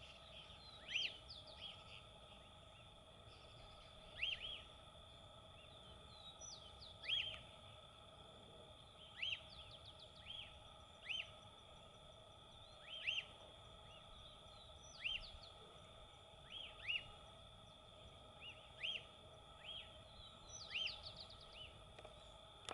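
Lesser elaenia (chibum) calling over and over: short, quick up-and-down notes, often in pairs, repeated every second or two, over a steady high background hum.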